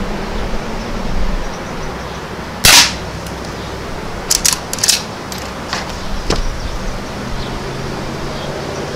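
A single shot from a Henry Frontier .22 lever-action rifle firing a low-velocity, quiet Super Colibri round, about three seconds in. About a second and a half later come several quick metallic clicks as the lever is worked to eject the case and chamber the next round, and one more click about a second after that.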